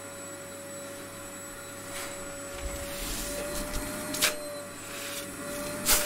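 Vacuum cleaner running with a steady motor whine. From about two and a half seconds in, a low rumble comes in along with scattered knocks, one sharp knock a little past four seconds in and a louder one at the very end.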